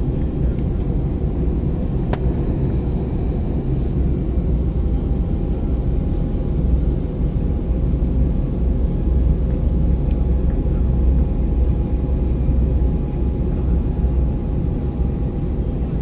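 Steady low rumble of airliner cabin noise from the running engines, with a faint steady hum over it. A single short click about two seconds in.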